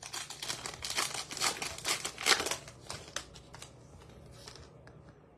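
Wrapper of a baseball card pack crinkling as it is torn open and the cards are slid out, the rustling dying down about three and a half seconds in.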